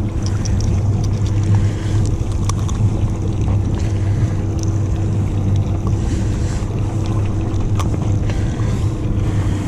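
Boat engine idling steadily, a constant low hum, with wind and water noise around it and a few faint clicks.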